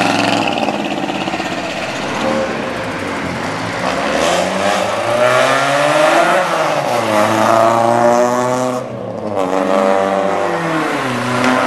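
Cars accelerating past with engines revving, the pitch climbing and falling several times, with a short drop about nine seconds in. Among them is a small car with a loud aftermarket exhaust, the kind derided as a "fart cannon".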